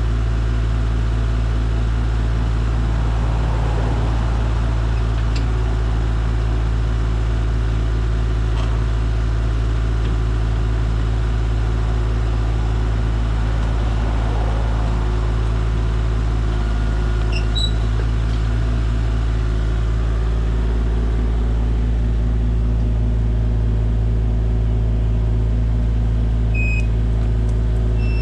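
Engine idling steadily: a constant low hum with several steady tones above it, unchanging throughout.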